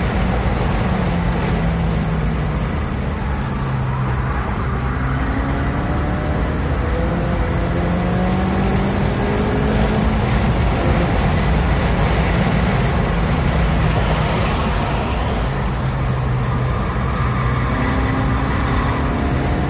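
2016 Ford Focus RS's turbocharged 2.3-litre four-cylinder engine driven hard on a race track, heard from inside the cabin over heavy road and wind noise. Its pitch climbs in several rising sweeps through the first half, holds steadier, then rises again near the end.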